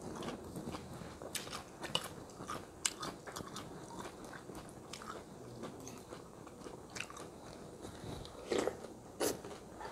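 Close-miked chewing and crunching of asinan Bogor: raw bean sprouts and cabbage with crackers in sauce, with wet mouth clicks. Two louder crunches come near the end.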